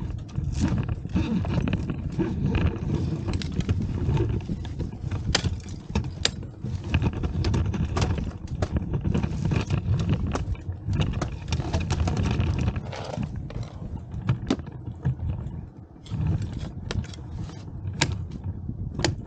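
Ice axes and crampons striking ice in sharp, irregular knocks as a climber works up a frozen waterfall, with metal climbing gear clinking, over a constant low rumble.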